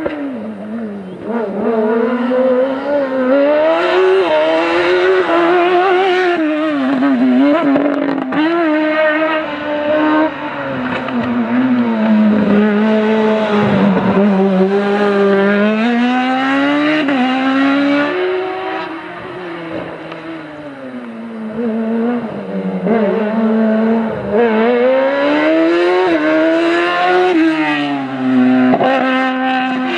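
Small race cars' engines revving hard through a tight cone slalom, the pitch climbing and dropping again and again as they accelerate and slow for the cones. Several cars pass one after another.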